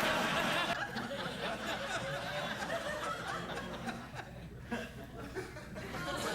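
Studio audience laughing, many voices at once. The laughter thins out about four seconds in and swells again near the end.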